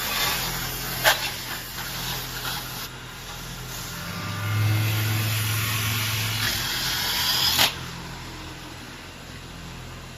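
CNC metal spinning machine running as it forms an aluminium part: a steady motor hum with a high hiss. There is a sharp knock about a second in. The hum swells in the middle, and a second knock comes just before the hiss cuts off near the end.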